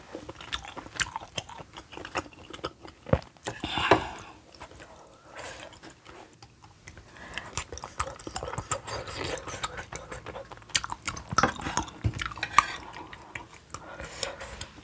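Close-miked chewing and wet mouth sounds of someone eating spicy kimchi stew with pork belly and sujebi dough, full of short sharp clicks and smacks.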